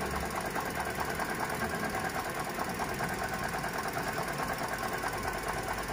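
Toyota 1NR-VE four-cylinder engine idling with a fast, even rattling knock from the front of the engine. The mechanics trace the rough noise to the alternator rather than the water pump, and suspect its shaft.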